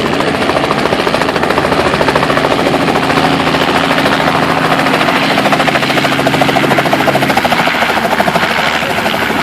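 Helicopter coming back in close, its rotor blades giving a loud, rapid, steady chop. A low steady hum joins underneath about two seconds in and drops away about seven seconds in.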